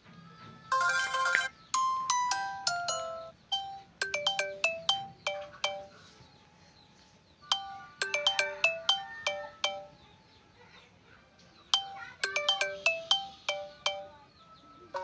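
Phone ringtones previewed one after another while a new ringtone is chosen. Short electronic melodies of clear, mostly falling notes, each a couple of seconds long with pauses between. A bright jangling burst comes about a second in.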